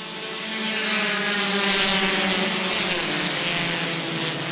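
A pack of compact touring race cars under full throttle on a green-flag restart, their engines swelling to a peak about two seconds in as the field passes, then easing slightly.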